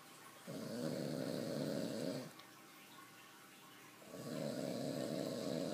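Loud snoring: two long, rasping snores about two seconds apart.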